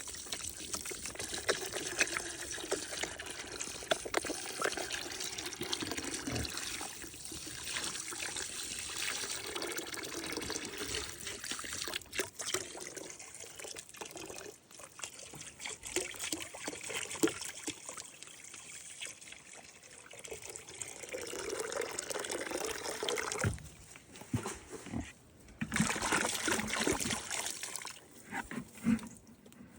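Water pouring and trickling into an animal's water container, with a few short breaks.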